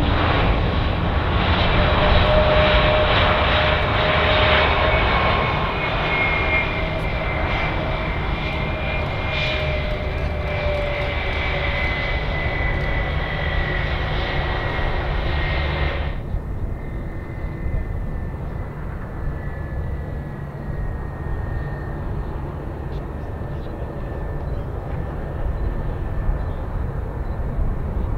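Airliner jet engines whining with a low rumble, the whine slowly falling in pitch. About two-thirds of the way through the sound changes abruptly to a quieter, fainter whine of a small business jet's engines.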